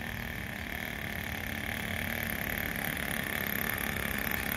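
Small nitro (glow-fuel) engine of a radio-controlled model boat running at a steady high-pitched whine, getting slightly louder as the boat passes close by.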